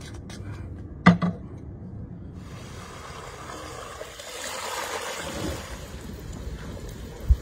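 Water pouring and splashing for a few seconds, with a sharp double knock about a second in and another knock near the end.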